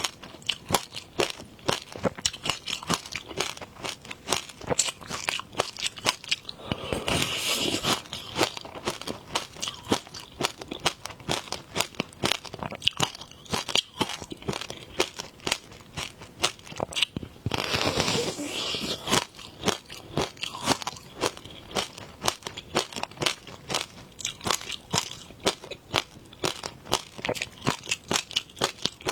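Close-up biting and chewing of a frozen passion fruit ice pop, a dense run of sharp crunches, with two longer crackly stretches about a quarter and two-thirds of the way through.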